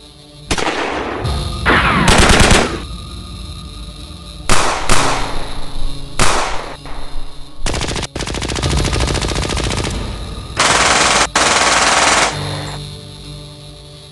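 Dubbed automatic gunfire sound effects in several bursts. The longest is a fast, even rattle of about three seconds in the middle. Soft background music plays in the gaps.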